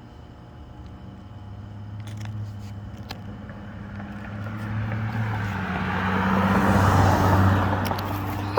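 Three packs of smoke-bomb fireworks lit at once, catching and fizzing with a hiss that builds over several seconds and is loudest near the end. A steady low hum runs underneath.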